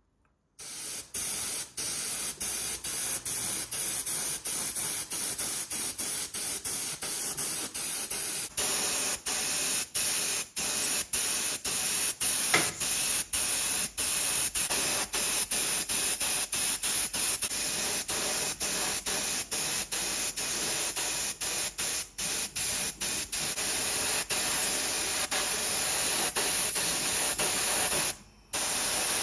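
Steady, loud spraying hiss from a spray or blasting tool, broken by many brief drop-outs, its tone shifting slightly about eight seconds in.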